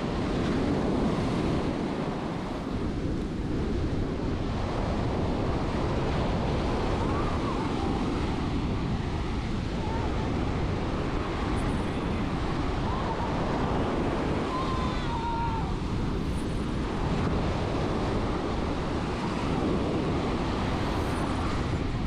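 Ocean surf breaking and washing up a sandy beach in a steady, continuous rush, with wind buffeting the microphone.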